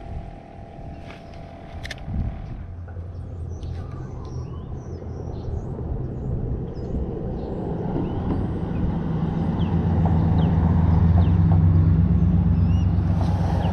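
A vehicle engine's low rumble, growing steadily louder through the second half and staying loud near the end. Faint short bird chirps sound above it.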